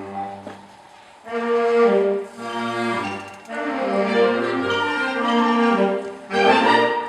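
Orchestral-style background music with strings and brass. After a quiet moment about a second in, it comes back loud in a run of swelling phrases.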